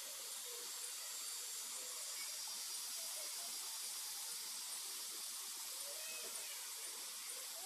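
Steady high hiss of outdoor background noise, with faint short high chirps repeating about every half second and a few faint distant calls.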